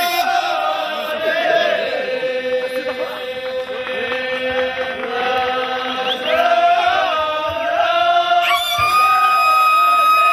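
Men's chorus of ahwach performers chanting in unison, long held notes that slide slowly between pitches. Near the end a steady high held note comes in.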